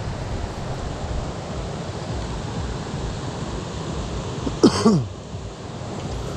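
Steady wind rumble on the microphone over a rippling river. About two-thirds of the way in there is a short vocal sound from the angler, falling in pitch.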